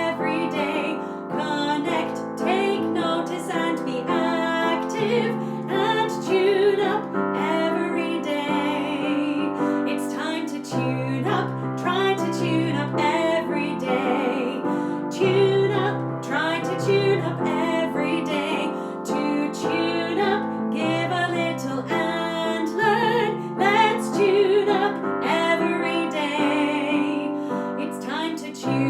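Song with piano accompaniment and a woman singing, steady throughout.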